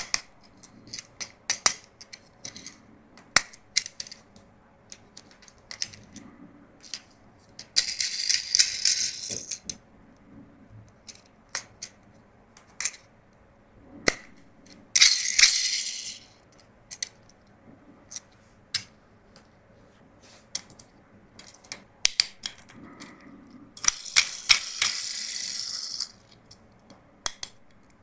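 Plastic toys and their packaging being handled: many sharp clicks and clatters of hard plastic pieces, with three rustling bursts of a second or two.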